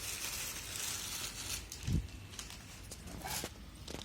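Faint rustling of packaging while the unboxed LED TV is handled, with one soft thump about two seconds in and a short crinkle of plastic wrap a little later.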